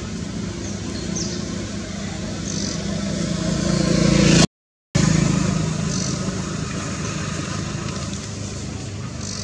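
A motor vehicle engine passing nearby: it grows louder to a peak about four and a half seconds in, the sound drops out for half a second, then it fades slowly away.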